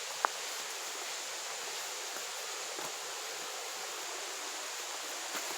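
Steady rushing of a brook and waterfall, an even hiss of moving water. A single sharp click sounds about a quarter second in.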